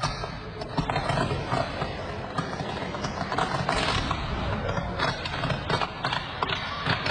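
Electrical short-circuit fire in ceiling wiring, arcing and burning: a dense crackling noise with many irregular sharp pops, a little louder about three to four seconds in.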